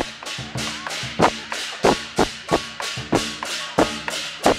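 Lion dance percussion: a large Chinese drum and crash cymbals played together in a steady, driving rhythm of about three strokes a second, with heavier accents on every other beat.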